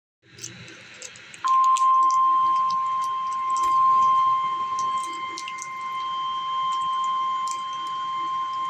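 NOAA Weather Radio single-tone warning alarm: a steady high tone that comes on sharply about one and a half seconds in and holds, after faint radio hiss. It announces a severe thunderstorm warning.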